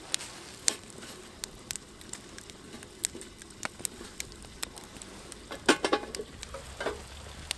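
Campfire embers crackling and a pan of eggs in tomato sauce sizzling on a grill over them, as scattered sharp clicks over a faint hiss. Near the end comes a brief cluster of louder clicks as the metal tin covering the pan is taken hold of.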